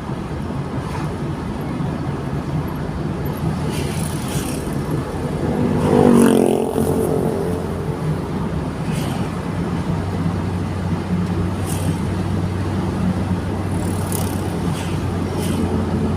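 Car driving along, its engine and road noise a steady low hum as heard inside the cabin. A louder pitched sound swells and fades about six seconds in, and another begins near the end.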